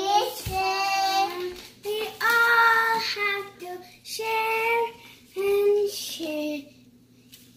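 A young girl singing in a high voice, in short phrases of held notes with brief breaks, stopping shortly before the end.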